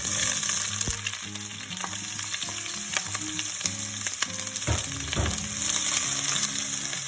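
Sliced onions sizzling loudly in hot sunflower oil in a pan, just after being dropped in, with occasional sharp clicks of a utensil as they are stirred.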